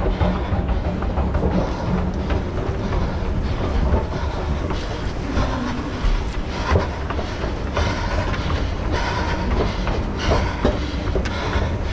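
Rumbling movement noise and footsteps from a head-mounted camera on a running orienteer, with irregular sharp knocks scattered through it.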